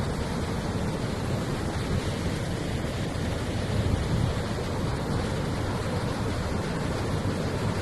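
Steady rushing noise, heaviest in the low end, with no distinct events.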